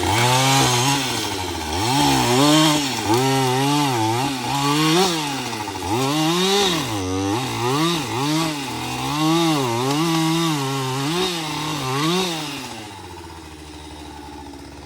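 Small engine revving up and down over and over, its pitch rising and falling about once a second, then dying away near the end.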